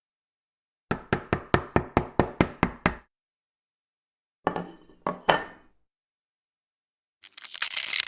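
Knife chopping on a cutting board: a quick, even run of about eleven strokes, then three more strokes after a short pause. Near the end a rough scraping noise starts.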